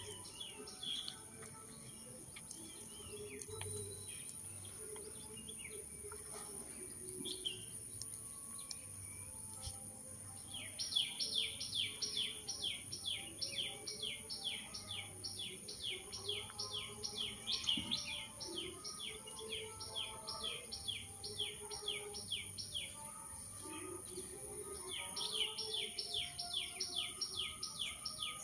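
A bird calling outdoors, giving a fast run of repeated high chirps at about three or four a second. The run starts about a third of the way in, breaks off briefly, and starts again near the end. A steady high-pitched whine runs underneath.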